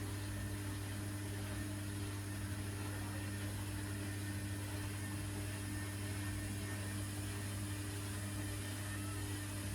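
Electrolux EW1057F washing machine running with a steady, even hum.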